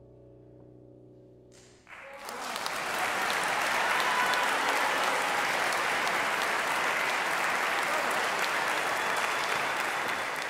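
The last chord of a grand piano dying away, then audience applause breaking out about two seconds in and continuing steadily.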